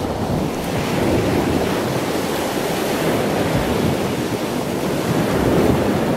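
A steady rushing noise like surf washing, swelling slightly, with no speech.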